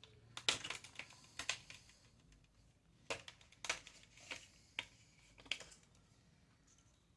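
Irregular sharp plastic clicks and taps from handling a laptop, about ten over five seconds, fading away near the end.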